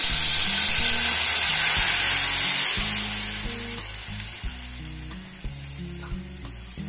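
Water poured into a pan of hot ghee and spluttered mustard seeds, setting off a loud sizzling hiss that starts suddenly and slowly dies down over a few seconds.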